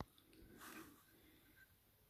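Near silence: room tone, with one brief click at the very start and faint soft handling noise as fingers fit a needle onto a rev counter dial.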